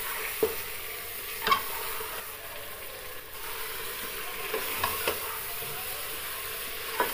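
Beef pieces sizzling in hot ghee in an aluminium pressure-cooker pot, being browned. A steel ladle stirs them, scraping and clicking against the pot now and then.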